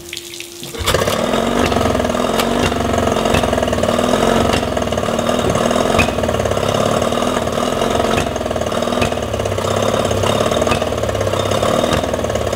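Yamaha 20 hp two-stroke outboard starting about a second in, then running steadily at idle with its cowling off, with an occasional sharp pop. It is still running no better after a carburettor clean, and the lean sneeze is not cured.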